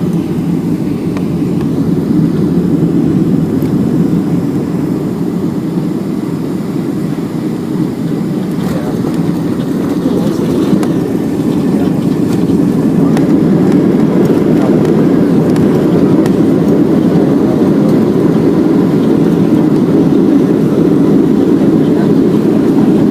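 Cabin noise of a Boeing 757-300 landing: a steady, loud roar of engines and rushing air heard from inside the cabin, growing louder about halfway through.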